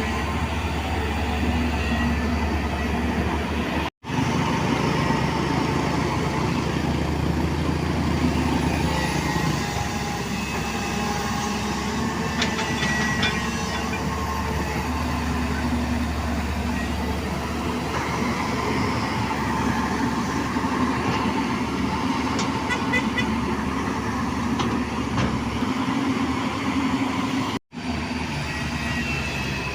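JCB JS205 crawler excavator's diesel engine running steadily under working load, with its pitch shifting as the hydraulics work and light metallic clanks now and then. The sound cuts out abruptly twice for a moment.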